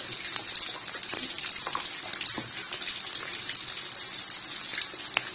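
Vegetables sizzling in a hot steel wok, with a metal spatula scraping and tapping the pan a few times.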